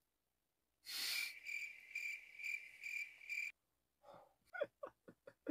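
A high, insect-like chirp that pulses about twice a second for about two and a half seconds, then a few short, soft blips near the end.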